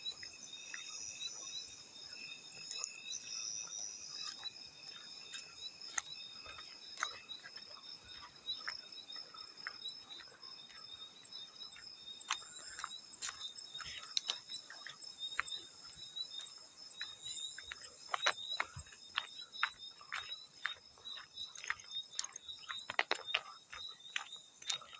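Field crickets chirping steadily in several overlapping high-pitched trills, with small, sharp water splashes scattered through, coming more often in the second half.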